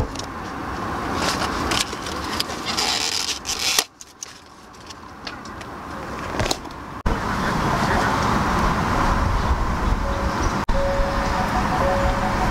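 Steady outdoor background noise with a low rumble and hiss. It swells in level over the first few seconds, breaks at two cuts, then holds steady. A few short faint tones sound near the end.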